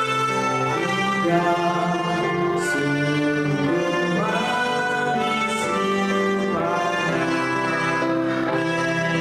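A children's ensemble of melodicas (pianicas) playing a tune in steady held notes, several pitches sounding together and changing every half second or so.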